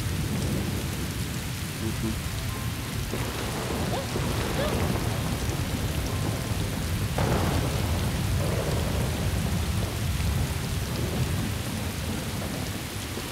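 Heavy rain pouring down, with deep thunder under it; the sound shifts about three and seven seconds in.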